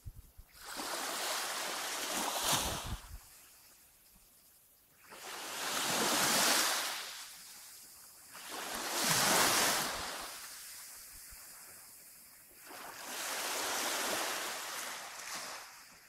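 Small sea waves washing up on the beach: four swells, each rising and falling over two to three seconds with quieter gaps between, and some wind buffeting on the microphone near the start.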